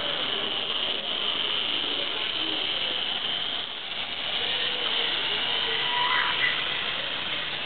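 Motor and wheels of an H0-scale model electric locomotive running steadily along the track, with a short rising squeak about six seconds in. The onlooker takes the motor noise as a sign that its armature needs oiling.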